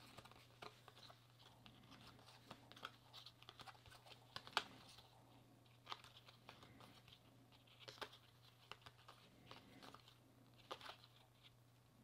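Paper baseball trading cards being flipped through and shuffled by hand: faint, irregular light flicks and rustles of card stock sliding over card stock, with a sharper flick about four and a half seconds in. A steady low hum runs underneath.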